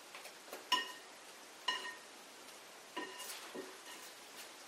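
Three sharp metal clinks, each with a short ring, as hand-mixer beaters are scraped and tapped clean of cream cheese with a utensil over a glass mixing bowl.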